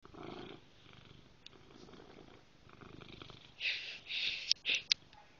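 A cat purring in slow, even cycles, low and soft, followed about three and a half seconds in by a few louder rustling bursts and sharp clicks.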